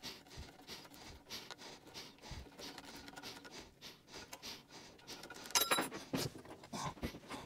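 Light scraping and rubbing as a blade eases an old padded decal off a lawn mower deck, with a louder ringing clink about five and a half seconds in and a few small knocks after it.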